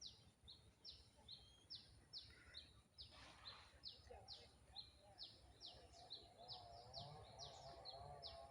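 Faint, rapid bird chirps: short descending notes repeated steadily about three times a second. A faint wavering whistle-like tone joins in the second half.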